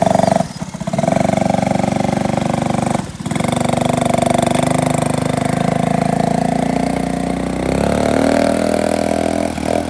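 Small off-road vehicle engine running under throttle, briefly letting off twice near the start and settling to a lower, steadier speed near the end.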